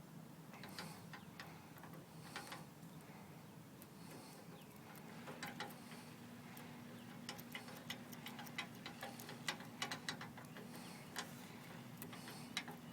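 Metal lock picks clicking and scraping in the small keyway of a trailer hitch lock as a rake is worked over the pins while another pick holds tension. Faint, irregular ticks, sparse at first and coming thicker about five seconds in.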